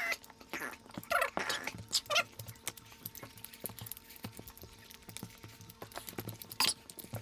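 Close-up eating sounds: chewing and lip-smacking with scattered small wet clicks as food is eaten by hand, a few louder smacks about a second in, around two seconds and near the end, over a faint steady hum.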